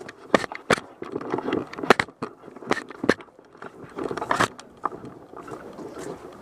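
Irregular sharp clicks and knocks with rustling between them, from a player's footsteps and gear as they move on foot through the field.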